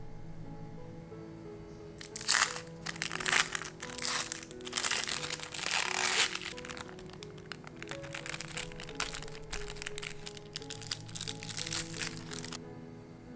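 Thin plastic wrapper of an individually wrapped cheddar cheese slice crinkling as it is peeled open and pulled off, over background music. The crinkling starts about two seconds in, is loudest for the next few seconds, then goes on more lightly until shortly before the end.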